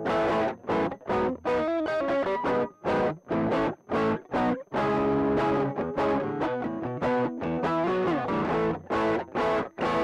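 Electric guitar played through a pedalboard with a driven, overdriven tone. Short chords and notes are cut off sharply in an uneven, stop-start rhythm, with a string bend about eight seconds in.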